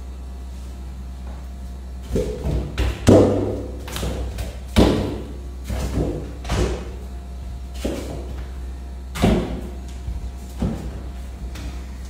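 Soccer ball kicked barefoot against a wall and bouncing on a tiled floor: irregular thumps with a short hollow ring, starting about two seconds in, roughly one a second. A steady low hum runs underneath.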